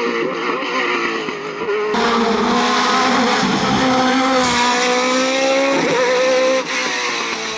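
Osella PA30 sports prototype's race engine at high revs climbing a hill-climb course, its pitch rising and dropping with gear changes and lifts. The sound jumps abruptly about two seconds in, and there is a brief dip near the end.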